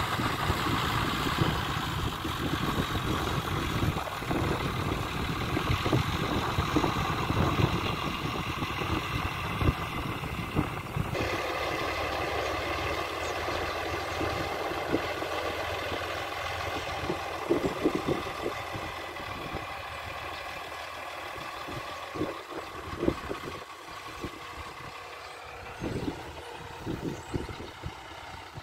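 Diesel engine of a front-loader tractor running steadily as it drives over a pile of chopped silage, packing it. The engine grows fainter in the second half, with a few thumps near the end.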